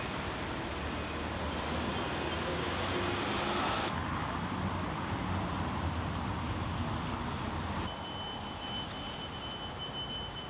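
Urban street ambience with traffic noise: a steady hum of vehicles, with a low engine rumble in the first few seconds. The background changes abruptly about four and eight seconds in, after which a thin steady high whine runs on.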